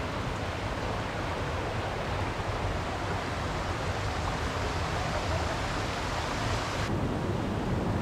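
Steady rush of flowing water from a stream or waterfall. About seven seconds in, the sound changes abruptly, with less hiss and more low rumble.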